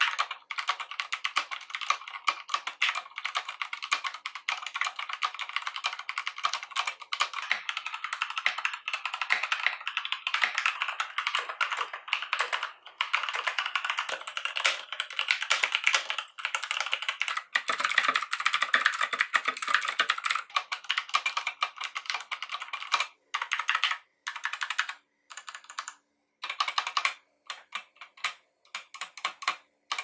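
Fast typing on mechanical keyboards: the Akko 3108 full-size board with Cherry MX Brown tactile switches, and about halfway through a Motospeed CK62 with Outemu Red linear switches. In the last several seconds the typing gives way to single key presses with gaps between them, ending with a press on the Akko's spacebar.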